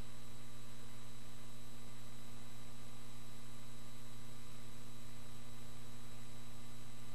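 Steady electrical hum over a constant hiss, with no other sound. The hum holds a low tone and several fainter higher ones, all unchanging.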